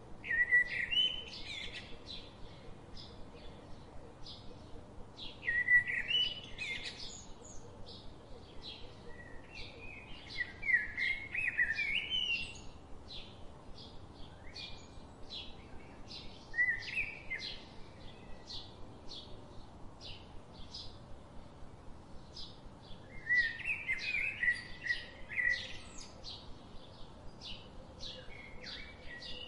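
Birds singing: a steady series of short high chirps, about two or three a second, with louder warbling song phrases every few seconds.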